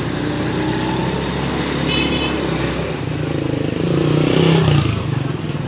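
Small motorcycle engine running steadily at low speed, with another motorcycle passing close by about four seconds in, the loudest moment.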